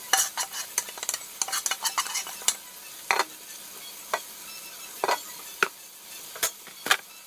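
Metal spoon clinking and scraping against a plastic bowl in irregular strokes as fish pieces are stirred. A faint steady sizzle of onions frying in a pan sits underneath.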